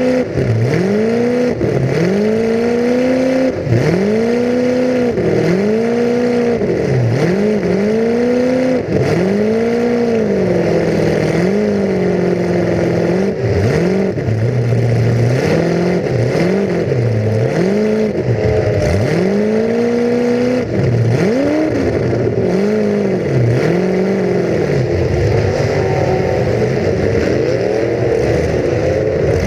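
Full-size demolition derby car's engine revved hard again and again, its pitch climbing and dropping every second or two, heard from inside the car. A few sharp knocks of impact cut in.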